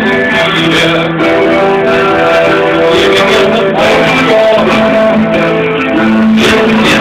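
Electric guitar strummed, a continuous run of chords changing every second or so.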